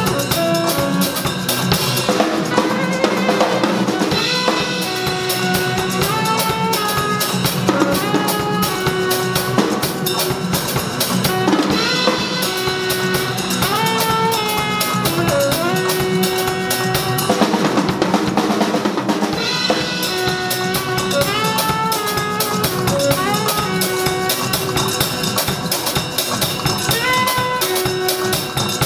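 A saxophone and a drum kit playing jazz together live: a sax melody over busy drumming with kick, snare, rimshots and cymbals.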